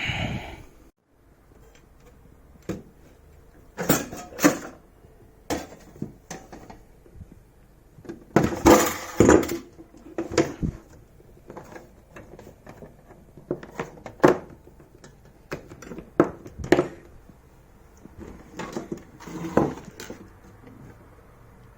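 Irregular knocks, clicks and clatter of plastic and metal coffee-machine parts being handled and fitted by hand, with a longer rattle about eight to nine seconds in.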